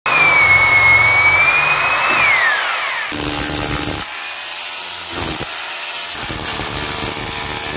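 Bosch GBH 220 rotary hammer: the motor whines steadily while drilling into a wooden post, then winds down in falling pitch about two seconds in. It then chisels into brick and mortar with a flat chisel bit, giving a rapid hammering in a few short, spliced bursts.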